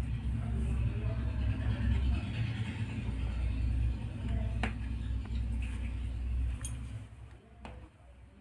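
Steady low rumble that dies away about seven seconds in, with a couple of sharp clicks of a knife touching a plate as a soft cake is cut.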